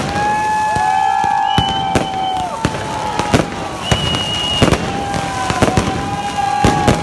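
Fireworks and firecrackers going off in the street: about a dozen sharp bangs at irregular intervals, with several long steady whistles of a second or two sounding over them.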